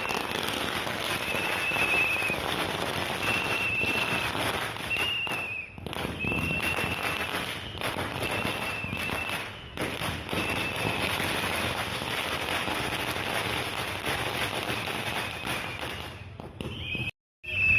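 A long string of firecrackers going off in dense, continuous crackling. Over it come short, high whistle blasts, one about every second and a half through the first ten seconds or so.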